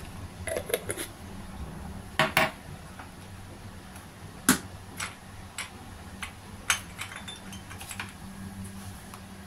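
Scattered light clinks and knocks of kitchen utensils and containers being handled, about a dozen, the sharpest about four and a half seconds in, over a low steady hum.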